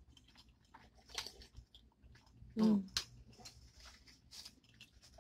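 Close-miked eating sounds of spaghetti being chewed, with wet mouth clicks and smacks scattered throughout. One short vocal "mm" comes about two and a half seconds in.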